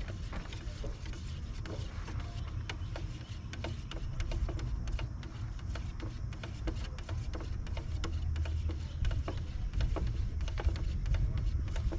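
A stir stick scraping and clicking against the inside of a can of gelcoat as it is stirred thoroughly to mix back the wax that settles in it, a quick irregular run of small scrapes and taps over a steady low rumble.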